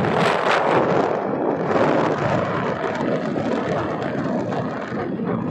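Wind buffeting the microphone on a moving scooter: a steady rushing noise with rough gusty streaks, loudest near the start and easing a little toward the end.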